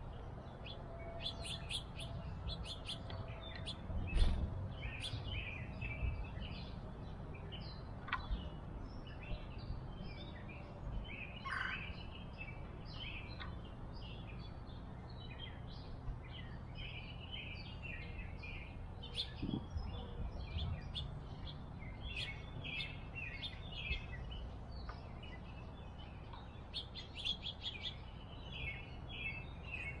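Small backyard songbirds chirping in many short, quick calls throughout, over a steady low background rumble. A dull thump about four seconds in is the loudest sound.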